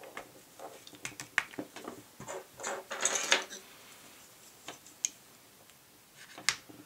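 Small clicks and a brief scraping rustle of a Glock pistol's polymer grip being handled as a backstrap is fitted and its steel retaining pin is set in the frame, with a sharp click about six and a half seconds in.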